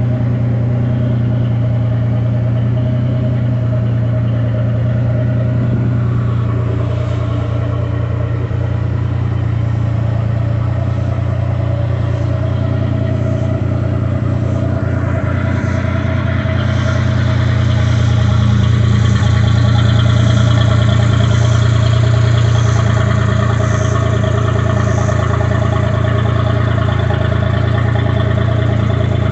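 Turbocharged Corvair Corsa 180 hp air-cooled flat-six running steadily at idle. About fifteen seconds in the sound grows louder and brighter and stays that way.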